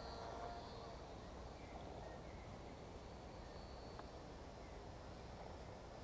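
Faint open-air background noise, steady throughout, with a brief high tone in the first half-second.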